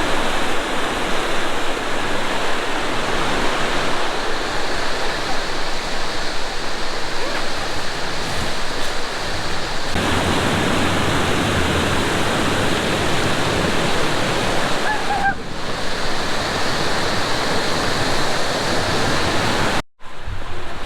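Waterfall: a loud, steady rush of falling water, which cuts out for an instant near the end.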